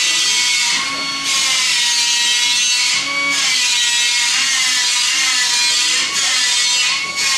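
Compressed-air paint spray gun hissing steadily with a whistling tone as coats are sprayed on. The hiss breaks off briefly a few times, about 1, 3 and 6 seconds in, between passes of the trigger.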